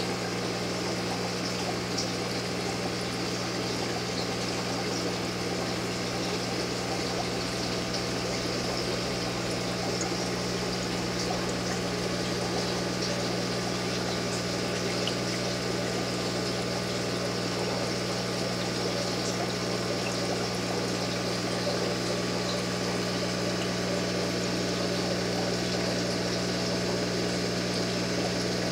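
Aquarium pump running: a steady low hum with a hiss of moving water over it.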